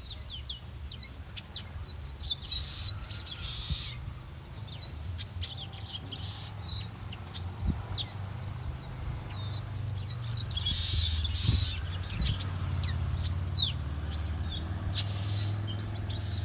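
Small birds chirping in a morning chorus: many short, quick, high notes, mostly sweeping downward, coming thick and fast for a few seconds past the middle. A steady low rumble runs underneath.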